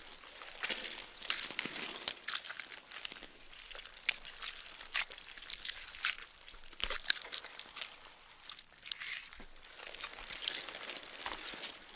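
Gore sound effect: irregular wet-sounding crunching and crackling, with two sharper snaps about four and seven seconds in.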